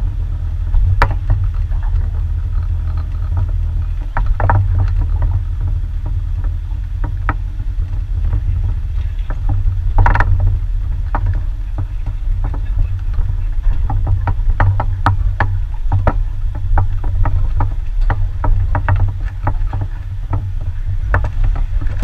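Jeep Wrangler's engine rumbling low as it crawls over a rocky trail, with tyres crunching on stones and frequent knocks and clicks from rocks and the chassis, a louder knock about ten seconds in. Heard through an action camera mounted outside on the hood.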